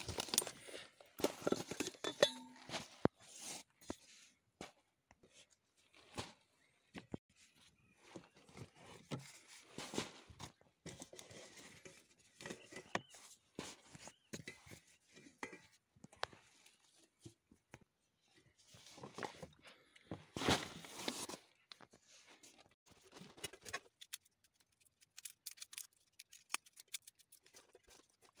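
Rummaging through a holdall and setting out camp cooking gear: rustling of the bag and plastic, with knocks and clinks of steel plates and pots. Near the end, a run of quick small taps as a knife cuts on a steel plate.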